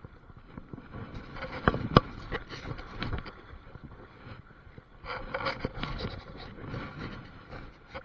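River water splashing and sloshing around a long-handled landing net as it is pushed and swept through the current to net a hooked king salmon. Sharp knocks come near two seconds in and again about three seconds in.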